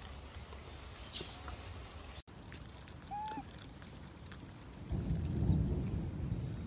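Low rumbling noise, like wind or handling on a close microphone, growing much louder about five seconds in. A single short, faint, high call sounds about three seconds in.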